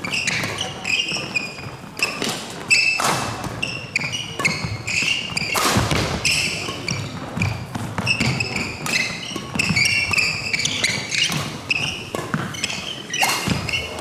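Badminton doubles rally: rackets striking the shuttlecock in quick succession, with court shoes squeaking in short chirps on the wooden floor and footfalls.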